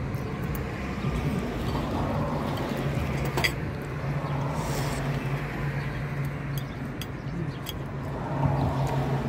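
Road traffic going past on a street, over a steady low hum, with one sharp click about three and a half seconds in.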